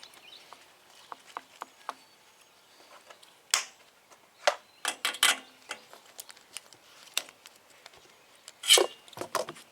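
Scattered clicks, knocks and short metallic rattles from welding cables and clamps being handled while the battery connections are checked for a fault, with louder rattles about three and a half seconds, five seconds and nine seconds in.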